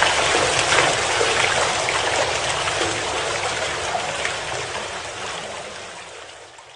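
A steady hiss of running water, fading out over the last few seconds.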